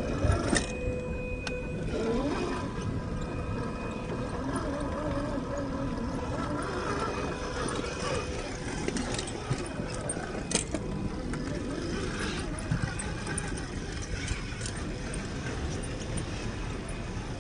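RC rock crawler's 550 brushed electric motor and gear drivetrain whining as it crawls over rock, the pitch wavering up and down with the throttle, with scattered clicks and knocks of tyres and chassis against the rock.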